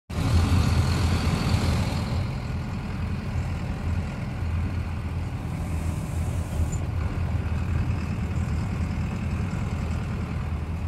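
Steady low engine and road rumble of a minibus motorhome driving along a highway, heard from inside the cab.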